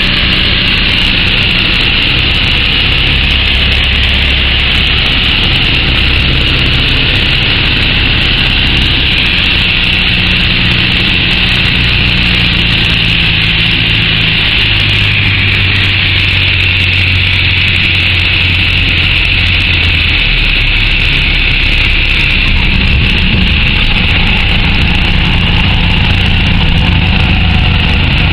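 Piper PA-38 Tomahawk's four-cylinder Lycoming engine and propeller heard from inside the cockpit, throttled back near idle through the landing and rollout. A steady loud hiss of airflow and cabin noise lies over it, and the engine's pitch shifts a couple of times.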